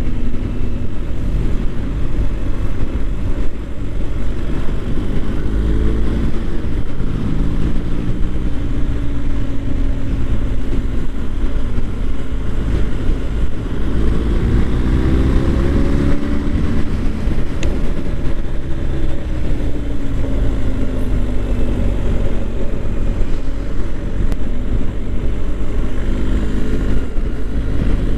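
BMW R1250 GS boxer-twin engine pulling along the road, its pitch rising several times as it accelerates and falling away as it slows, under a steady rush of wind and road noise.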